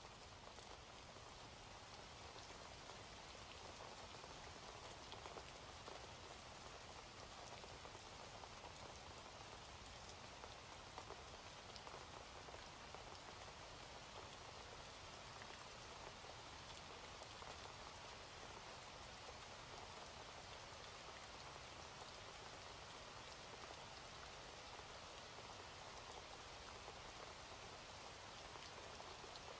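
Faint steady rain: an even hiss of falling rain with scattered sharp drop ticks.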